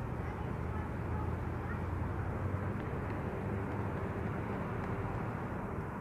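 Steady low rumble of outdoor city ambience, like distant traffic, with no distinct events.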